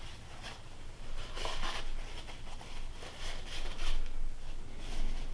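Cloth and paper towel rubbing and scuffing against the cast-iron lathe headstock as the last of the oil is wiped from its oil holes, in a few short bouts of scraping.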